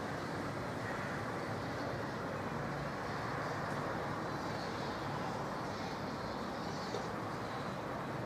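Steady vehicle noise, an even rumble and hiss with a faint low hum that holds level throughout.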